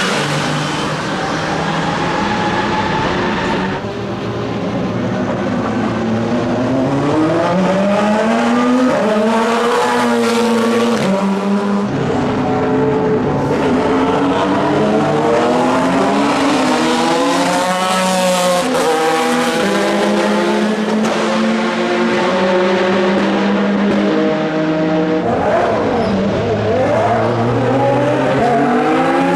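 Endurance race cars at racing speed, their engine notes climbing in pitch through the gears with sudden drops at each upshift and falling as they brake, several cars overlapping and passing one after another.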